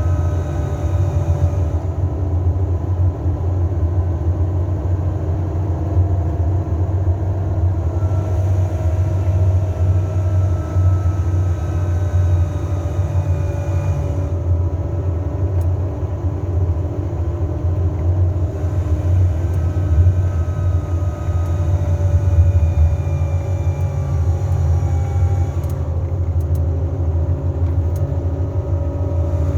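Mercedes-Benz Travego 15 SHD coach coasting downhill on its retarder, with a steady low engine rumble and faint whining tones that slowly drift up and down in pitch.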